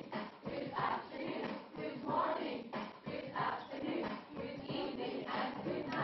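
A group of children singing a greetings song in chorus with a woman leading them, over backing music, in phrases that swell and fade about once a second.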